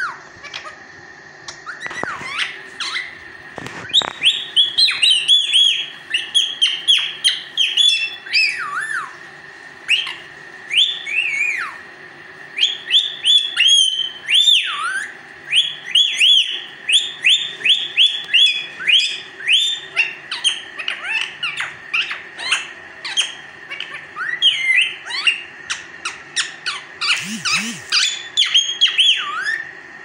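Indian ringneck parakeet squawking in rapid runs of short, shrill, falling calls, many a second, with brief pauses about ten and fifteen seconds in.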